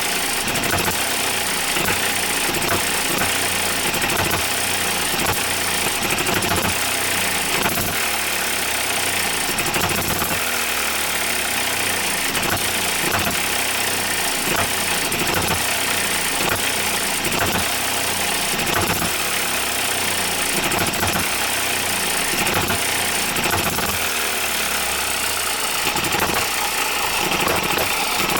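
OKMO Microcosm M92 miniature hit-and-miss engine running under its governor, firing in short knocks at uneven intervals, roughly one or two a second, with quieter coasting between firings.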